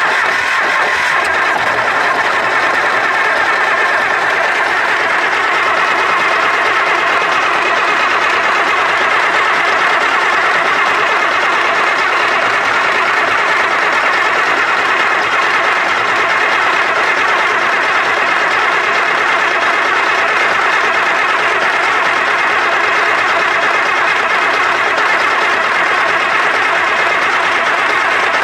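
Starter motor cranking a supercharged Cummins diesel tractor engine over steadily for nearly half a minute without it firing, then cutting out at the end as the engine spins down.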